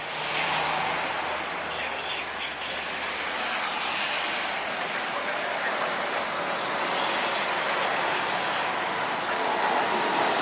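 Jet airliner engines running, a steady rushing noise that grows a little louder near the end.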